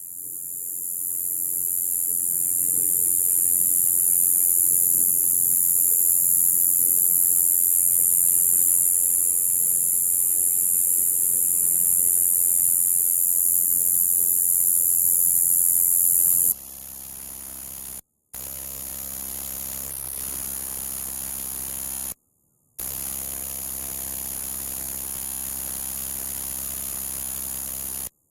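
Male Xestophrys javanicus coneheaded katydid singing a continuous, very high-pitched buzz. The buzz swells in over the first couple of seconds and holds steady and loud. Past the middle it drops much quieter, with two brief breaks, over a faint low electrical hum.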